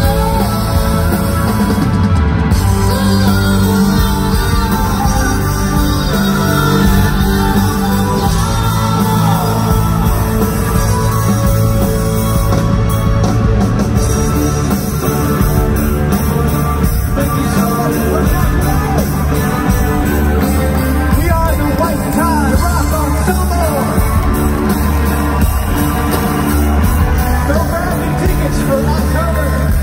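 Live rock music from a band with electric guitars, drums, keyboards and a string section of violins and cello, with singing, played at concert volume and heard from among the audience.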